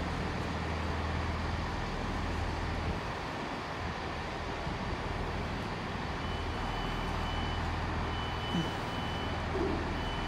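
Class 165 diesel multiple unit drawing slowly into the platform, its diesel engines giving a steady low hum. From just past halfway a thin high whine comes and goes several times.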